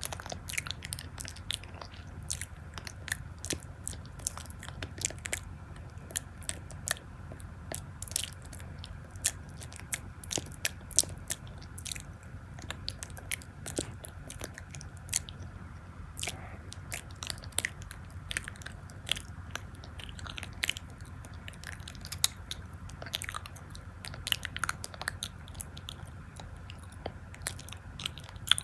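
Crunchy chewing and biting: irregular sharp crunches, several a second, over a low steady hum.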